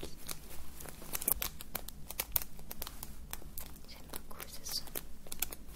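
Crinkling and crackling of something handled close to the microphone: a dense run of small, sharp crackles with no pause.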